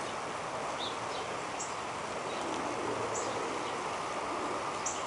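Northern cardinal giving short, sharp, high chip calls about every second and a half, over a steady hiss of outdoor background noise.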